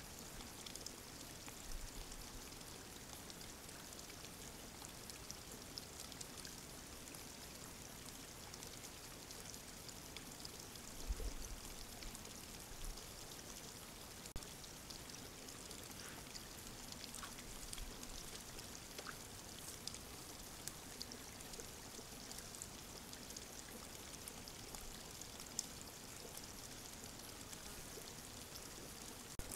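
Faint dripping and splashing of shallow water over a steady hiss, with scattered small ticks and a soft low thud about eleven seconds in.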